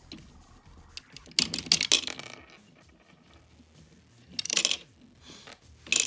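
Plastic clatter from a hand-built Lego wood-chipper model as it is worked, in two main bursts of rattling clicks and a short one near the end, while small Lego pieces drop out as 'chips' into its tray.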